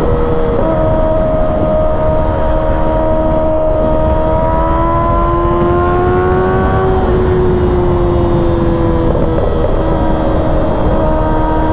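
2024 Kawasaki ZX-6R's 636 cc inline-four engine at highway speed over a steady rush of wind. The engine note climbs gently for a few seconds under throttle, then drops about seven seconds in and eases lower.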